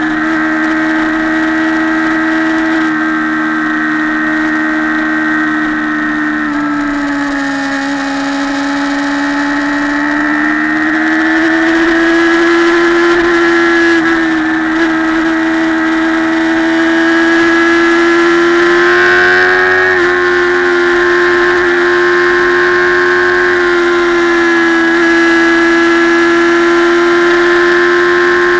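Motorcycle engine running at road speed, a steady pitched drone that drops a little in pitch several seconds in and then climbs back as the bike picks up speed.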